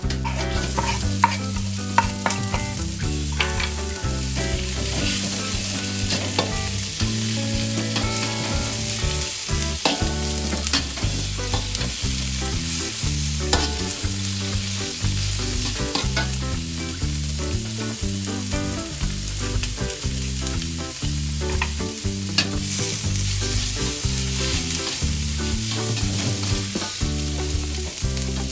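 Food sizzling and frying in hot oil in a pan while it is stirred, with frequent sharp clicks and scrapes of the utensil against the pan.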